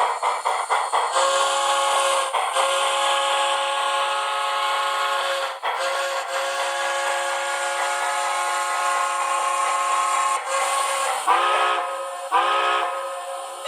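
Steam whistle sound from a TCS WOW Sound decoder in a model locomotive: several notes sounding together as a chord. It starts as a long drawn-out blast with two short breaks, then gives two shorter blasts near the end, each sliding up in pitch as it opens. The steam chuff of the decoder's exhaust sound is heard in the first second.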